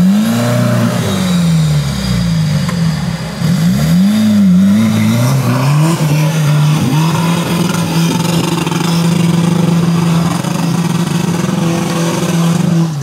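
Suzuki Samurai off-road trial truck's engine revving hard: the pitch rises and falls several times over the first few seconds, then holds steady at high revs under throttle for the rest.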